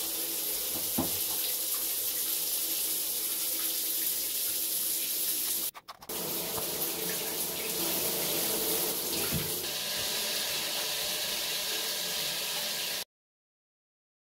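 Water spraying steadily from a shower head in a shower stall, a continuous hiss of falling water. It breaks off briefly about six seconds in, when the shower head before replacement gives way to the newly fitted one, and then stops abruptly about a second before the end.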